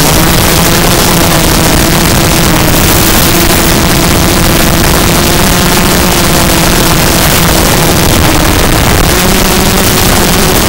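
Zabo 250 quadcopter's brushless motors spinning 5x4 carbon fiber props in aggressive flight: a loud steady hum whose pitch wavers slightly as the throttle changes, under heavy hiss.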